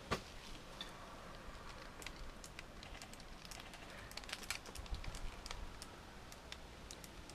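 Scattered faint, irregular clicks of airsoft gunfire over a light hiss.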